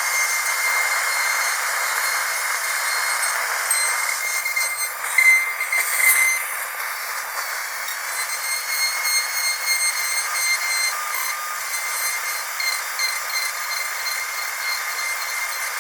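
Dentist's drill running with a steady high-pitched whine, with a brief louder burst about five to six seconds in.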